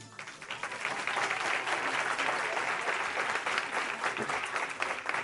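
A Christmas song with jingle bells stops right at the start, and an audience breaks into applause that builds over the first second and then keeps going steadily.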